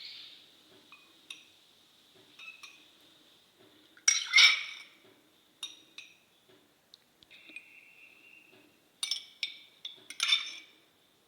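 A glass and kitchen utensils clinking sharply now and then, loudest about four seconds in and again near the end, as strong black tea is poured slowly down the side of a glass to make layered lemon tea. A faint steady high whine runs underneath.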